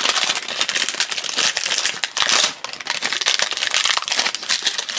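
Thin plastic wrapper crinkling as it is peeled by hand off a toy surprise egg, a dense run of small crackles.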